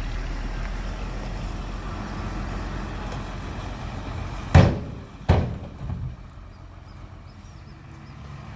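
A heavy vehicle's engine running steadily, with two loud bangs less than a second apart a little past the middle, then a smaller knock.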